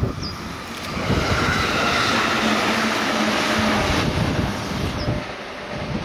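JR Central 211 series electric multiple unit passing close by: a steady rush of wheels on rail that builds about a second in and falls away after about four seconds, with a brief low steady hum in the middle of the pass.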